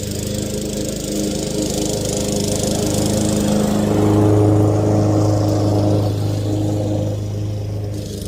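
Lawn mower engine running steadily under load while cutting grass, getting louder toward the middle and easing slightly near the end.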